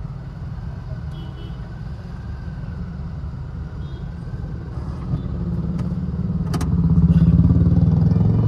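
Road traffic: a steady low engine and road rumble, with a motor vehicle's engine growing louder from about five seconds in and peaking near the end.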